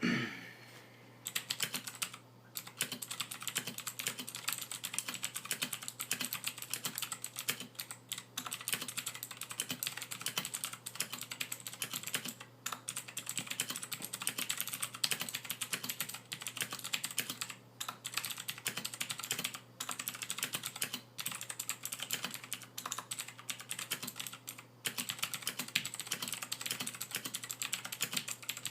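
Royal Kludge RK61 60% mechanical keyboard being typed on fast and continuously, a dense clatter of key presses broken by a few short pauses. The board is fully stock, with unlubricated stabilizers, no dampening and its original keycaps. A brief falling swoosh opens the passage.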